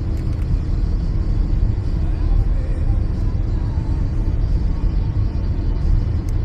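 Steady low rumble of road and engine noise from a car driving on wet roads.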